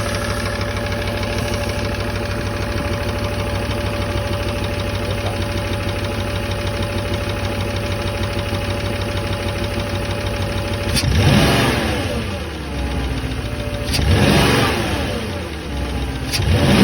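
Porsche Cayenne engine idling steadily, then revved three times about three seconds apart, each rev rising quickly and falling back to idle. The owner is checking whether a tapping from the engine is a knock or normal running.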